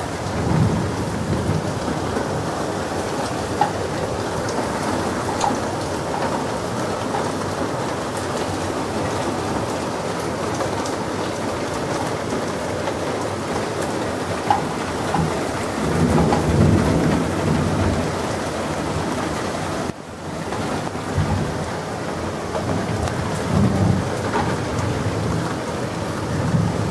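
Steady rain falling during a thunderstorm, with low rumbles of thunder several times, the longest about two-thirds of the way through.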